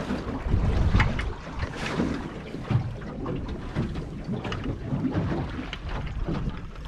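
Gusty wind buffeting the microphone on a small boat on open sea, with irregular knocks and water slaps throughout.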